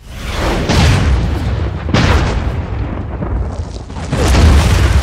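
Series of heavy explosive blasts with rock and dirt thrown up and a deep low rumble. Big hits come about a second in, again at two seconds, and the loudest near the end.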